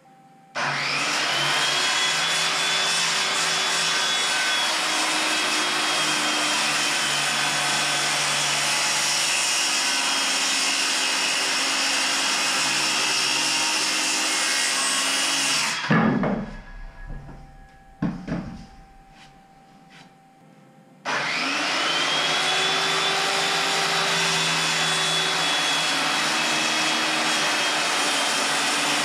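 Corded circular saw cutting an elm board: the motor spins up with a rising whine and runs steadily, stops suddenly with a thump and a few knocks, then spins up again and runs on for a second cut.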